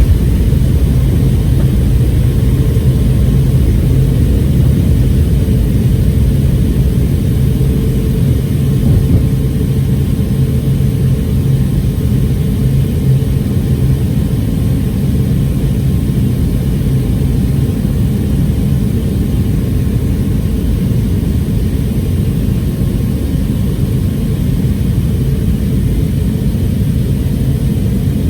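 Boeing 717-2BD's tail-mounted Rolls-Royce BR715 turbofans heard inside the passenger cabin during departure: a loud, steady low rumble with a steady low hum, easing slightly about ten seconds in.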